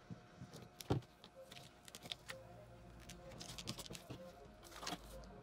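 Small clicks, ticks and rustles of hands and a pocket knife weeding cut heat-transfer vinyl, picking the excess off its plastic backing sheet on a desk, with one sharper knock about a second in.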